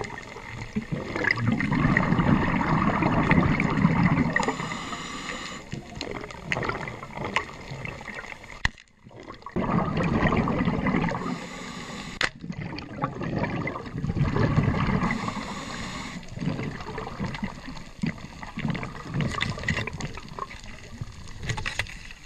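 Underwater bubbling and gurgling from a scuba diver's regulator, coming in waves every few seconds as the diver breathes, with a brief lull about nine seconds in.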